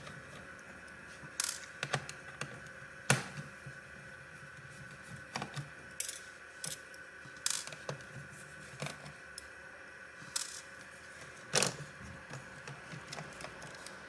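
Scattered small clicks and taps of a screwdriver turning out the screws on a laptop's fan and heatsink, with the rattle of small metal and plastic parts being handled. The clicks come irregularly, the sharpest about 3 seconds in and near 11.5 seconds, over a faint steady hum.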